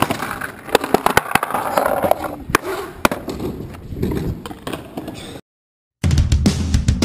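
Skateboard on concrete: wheels rolling with many sharp clacks and knocks as the board's tail, trucks and deck strike ledges and ground. It cuts off about five and a half seconds in.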